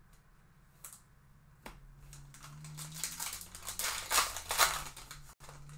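A Topps Chrome Sapphire trading-card pack's foil wrapper being torn open by hand, crinkling and crackling, loudest about four seconds in, after a couple of light clicks.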